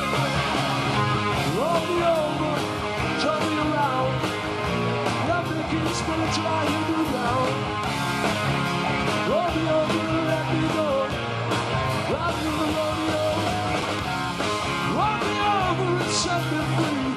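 Upbeat rock-and-roll style song with guitar, a melody line bending over a steady beat.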